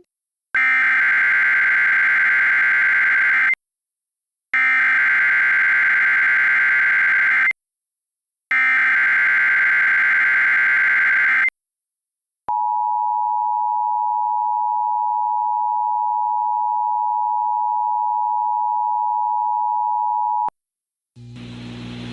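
Emergency Alert System tones: three bursts of SAME digital header data, each about three seconds long with a short silence between them, then the steady two-tone attention signal (853 and 960 Hz) held for about eight seconds and cut off sharply. They open an EAS tornado warning.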